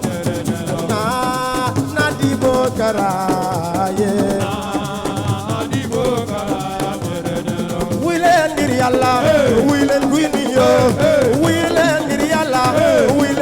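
Live Senegalese assiko band music: fast drumming with rattles, under a wavering melody line that grows louder about eight seconds in.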